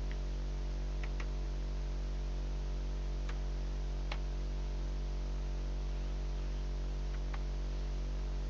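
Steady electrical mains hum at about 50 Hz, with a handful of single computer-keyboard key clicks scattered through it as digits are typed.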